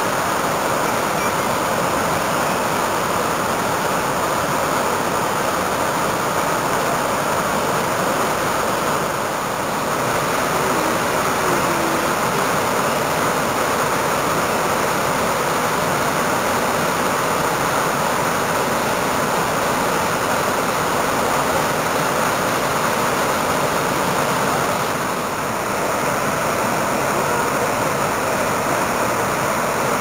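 Guadalix river waterfall, two falls pouring over rock into a pool: a loud, steady rush of falling water that eases slightly twice in its higher hiss.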